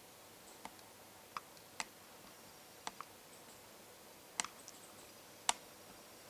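Sparse, irregular small clicks, about nine of them, the sharpest near the end, over a faint steady hiss.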